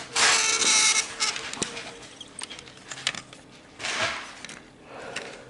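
HO scale model train rolling slowly along the track, with scattered light clicks from the wheels and couplings. There is a burst of rustling noise in the first second and a shorter one about four seconds in.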